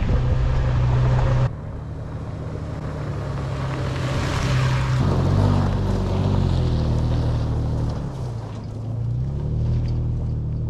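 Toyota FJ Cruiser's V6 engine running as it drives a dirt mountain trail, its note rising and falling with the throttle. A louder rushing noise stops abruptly about a second and a half in.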